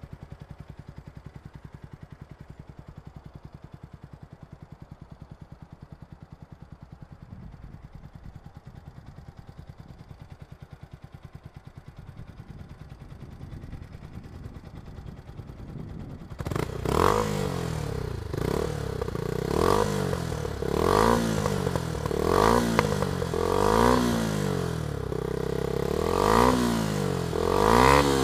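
Yamaha YZF-R125 single-cylinder four-stroke engine breathing through a Scorpion Serket Taper full exhaust system with a home-made dB killer. It idles steadily for about the first half, then gets suddenly louder and is blipped on the throttle again and again, the revs rising and falling about once a second.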